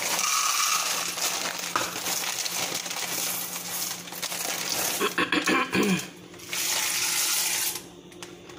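Pot of water at a rolling boil with elbow noodles in it, bubbling with a steady hiss, and a few short clinks and rattles about five seconds in.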